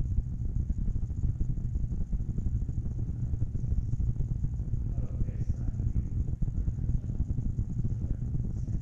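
Steady low rumble of background noise, with no distinct hisses or knocks standing out.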